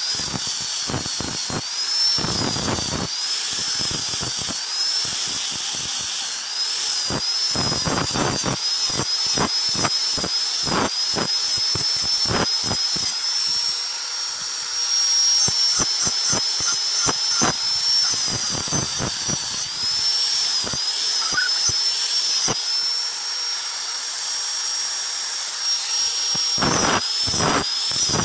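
Handheld electric angle grinder with an abrasive disc grinding a steel cleaver blade: a high motor whine that dips and wavers in pitch as the disc bites into the steel, steadier while the blade is briefly lifted away, with frequent clicks and knocks from the blade against the disc and plank.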